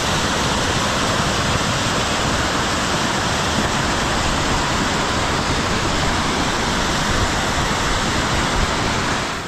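Floodwater rushing in a torrent: a loud, steady, unbroken rush of water.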